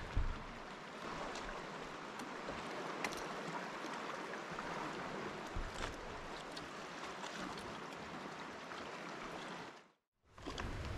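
Gentle, steady wash of calm sea water lapping around a kayak, with a few faint clicks. The sound cuts out completely for a moment near the end.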